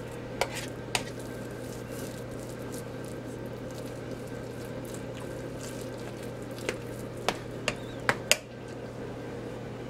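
Metal spoon stirring thick, moist chicken dressing in an enamel bowl: soft squishing with a few sharp clinks of the spoon against the bowl, twice near the start and several in quick succession in the last few seconds. A steady low hum runs underneath.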